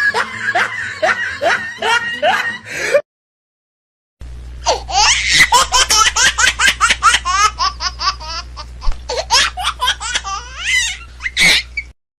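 Two laughing sound effects, split by about a second of dead silence: first a rhythmic laugh, then a long, fast, high-pitched laugh that ends in a short shriek.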